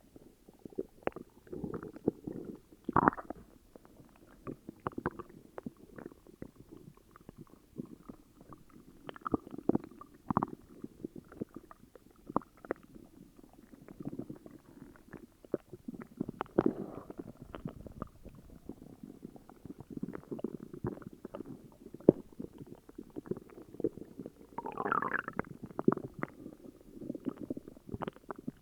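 Human stomach growling and gurgling from an upset stomach: a continual, irregular run of low rumbles dotted with many small pops and squelches, with one louder, higher gurgle near the end.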